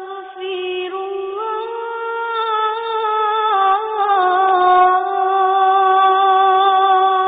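A single high, wordless voice singing long held notes that slide slowly up and down without a break, growing louder about halfway through.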